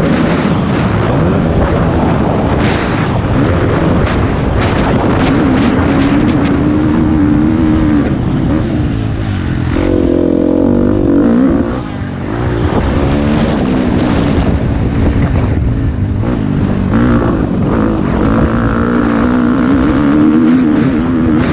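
Motocross bike engine running hard as it is raced around a dirt track, its pitch rising and falling with the throttle. About ten seconds in it revs up, then briefly backs off. Wind buffets the mic throughout.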